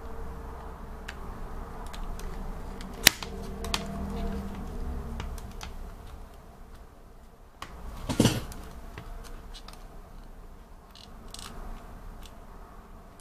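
Handling noise: a sharp click about three seconds in and a smaller one just after, then a short scuffing knock a little past the middle, with faint scattered clicks over a low steady hum.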